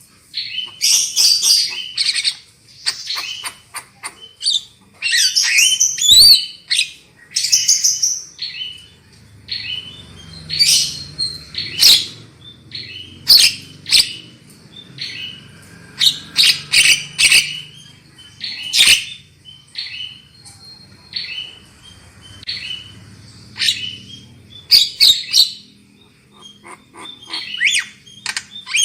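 Javan myna (jalak kebo) calling: a fast run of short harsh chirps, squawks and sharp notes, in clusters with short gaps.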